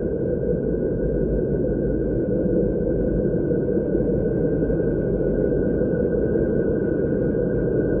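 A steady, low rumbling drone with a faint thin tone above it, presented as a recording of the Earth's hum.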